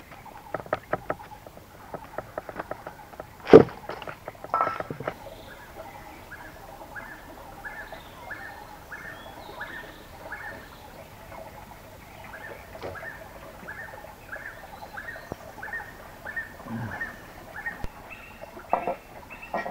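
Scattered clicks and knocks, with one loud knock about three and a half seconds in. Then an animal's short call repeats steadily, about one and a half times a second, for some twelve seconds.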